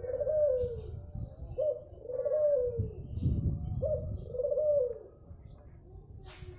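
Zebra dove (perkutut) cooing its song: a short note followed by a longer wavering coo, repeated three times, stopping about five seconds in.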